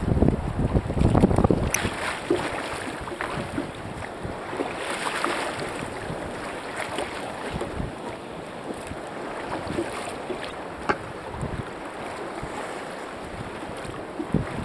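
Wind buffeting the microphone over choppy sea water slapping and splashing around a sea kayak. The gusts are heaviest in the first two seconds, then ease to a steady rush of wind and water.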